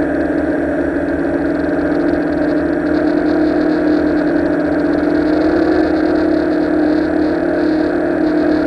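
Electric motors and propellers of a Tarot Ironman 650 quadcopter whirring steadily in flight, heard close from its onboard camera: a layered hum of several tones that rises slightly in pitch about five seconds in.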